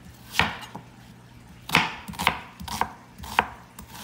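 Chef's knife cutting a peeled white onion on a plastic cutting board: several sharp knife strikes against the board, about half a second to a second apart.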